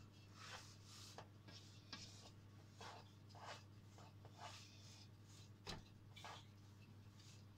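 Faint scraping strokes of a spatula spreading thick cake batter in a round metal baking tin, about a dozen uneven strokes, with one sharper tap a little before the end, over a steady low hum.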